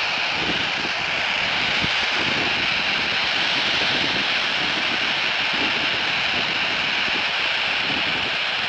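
Steady FM static hissing from the speaker of a Baofeng BF-F8HP handheld radio tuned to 145.800 MHz. The squelch is open and no signal is coming down from the ISS between the astronaut's transmissions.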